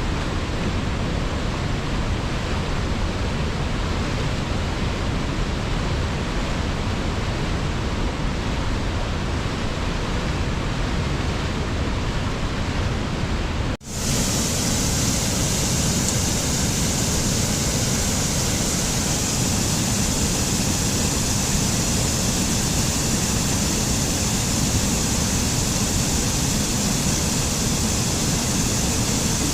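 Rushing water, a steady, even roar. About 14 s in it cuts off for a moment and comes back as a different, brighter and hissier rush of water.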